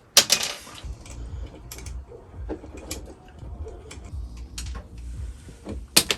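Scattered light clicks and taps of hands handling electrical wires and small parts, with a sharper click just after the start and another near the end.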